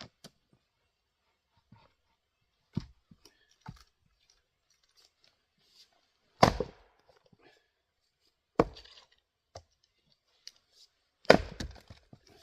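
A 3½-pound Craftsman single-bit axe chopping and splitting firewood: two light knocks, then three heavy chops about two seconds apart, some followed by the crackle of the wood breaking apart.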